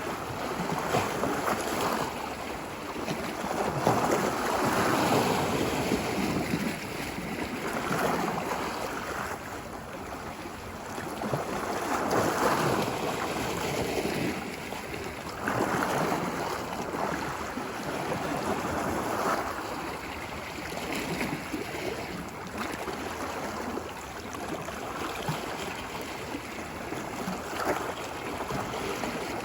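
Ocean waves washing onto a beach, a steady surf noise that swells with each wave every few seconds.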